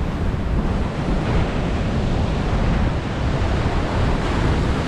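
Sea surf washing in as a steady rush, with wind buffeting the microphone and adding a low rumble.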